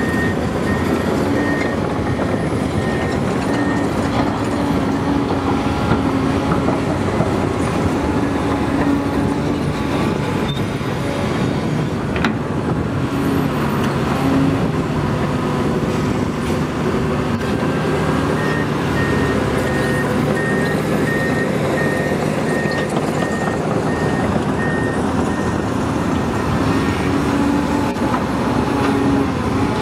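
Komatsu PC800LC hydraulic excavator's diesel engine and hydraulics working steadily as it digs and swings loads into a dump truck. A backup alarm beeps steadily at the start and again for several seconds past the middle, and a single knock sounds about twelve seconds in.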